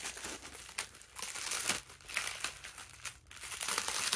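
Plastic packaging crinkling and rustling in irregular bursts as hands pull at it to get it open.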